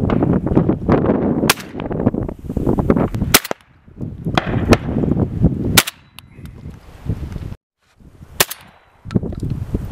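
Shotgun shots fired at flying doves: about five sharp cracks spaced one to three seconds apart, over a rough, rumbling background noise that cuts off abruptly a couple of times.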